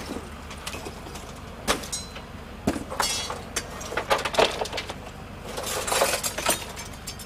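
Irregular knocks and glassy clinks of crash debris being moved, over the steady low hum of an idling engine.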